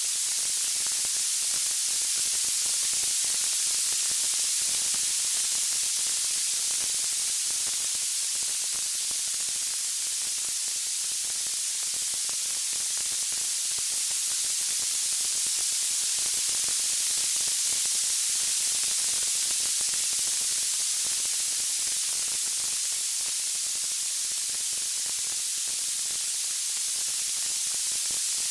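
Steady, bright white-noise hiss with no distinct crackles, pops or melody standing out.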